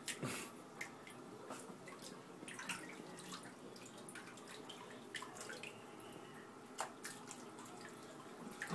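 Light drips and small splashes of bathwater in a plastic baby tub as hands wash a baby.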